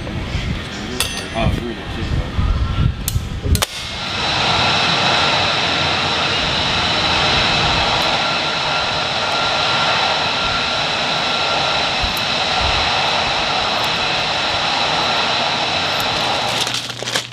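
Metal clicks and knocks of GAU-21 .50-calibre machine-gun parts being handled. From about four seconds in, a loud, steady mechanical whine with several high tones takes over, then drops away near the end.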